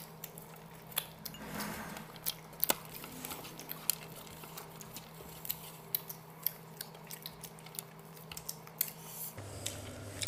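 Eating sounds at the table: irregular small clicks and taps as hands pick at pieces of chicken tangdi kebab and bones on the plates. A steady low hum runs underneath and drops lower about nine seconds in.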